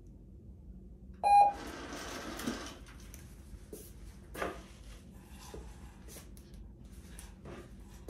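A short, loud, high beep about a second in, followed by about a second and a half of rustling. After that only faint scattered taps and shuffles are heard.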